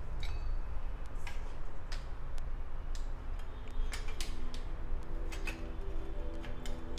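Light metallic ticks and clicks, roughly once a second, from a stainless steel puttu steamer sitting on a lit gas burner, over a steady low hum. Faint steady tones come in about halfway through.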